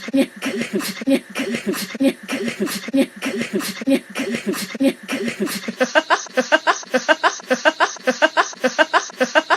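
A person's voice making a sound effect: a rapid run of short repeated vocal pulses, about four a second, that speeds up to about six a second and turns sharper about six seconds in.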